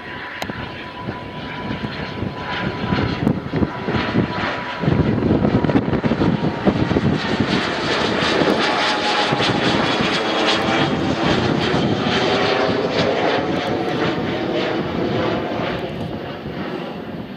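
Cessna Citation twin-turbofan business jet flying overhead: its engine noise swells about five seconds in, stays loud through the middle with a falling sweep as it passes, then fades away.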